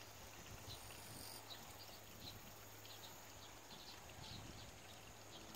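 Faint garden ambience: short high chirps from small creatures, scattered a few times a second, over a steady low hum.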